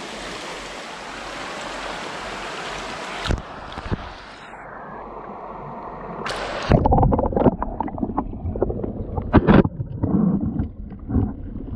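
Shallow, fast-flowing creek water rushing steadily, then heard from under the water about halfway through: muffled, irregular gurgles and knocks of the current against the submerged camera.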